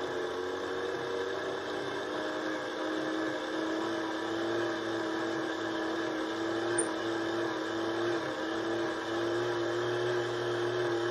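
Hand-cranked insulation tester's generator whirring steadily as its crank is turned, a pitched hum that rises slightly in the first couple of seconds and then holds. It is being cranked on its 500–600 V range to drive a metal oxide varistor toward its conduction voltage.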